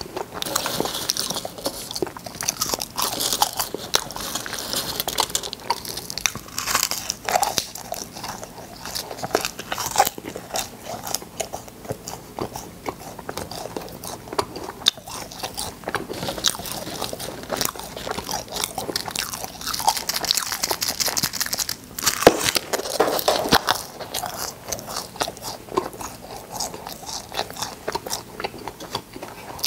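Cola-flavoured popping candy being chewed and crunched close to the microphone, a dense, continuous run of small pops and crunches.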